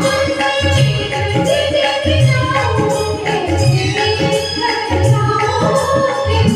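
Hindi devotional bhajan music: a keyboard melody over a steady tabla-like drum beat with tambourine jingles.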